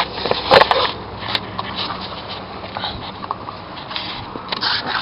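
Handling noise: scattered rustling and light clicks close to the microphone, a few louder ones in the first second.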